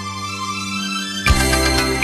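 Instrumental intro of a pop song. Held notes swell, then about a second in the full band enters with a strong beat of low hits.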